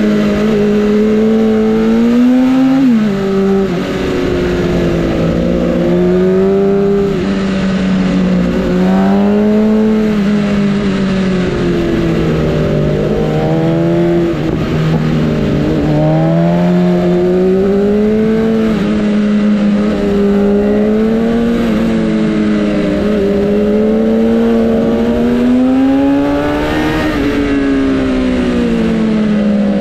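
Sportbike engine running under way, its pitch repeatedly climbing and falling with the throttle, with a sudden drop in pitch about three seconds in.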